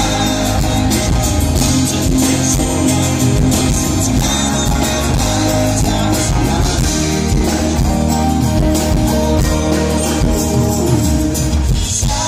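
Live pop-rock band playing through a stage PA: acoustic guitar, electric bass and electric guitar.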